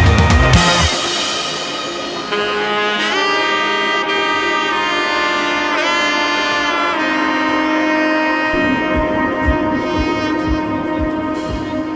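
Background music: a melody of long held notes with a few sliding bends, joined by a steady drum beat about two-thirds of the way in.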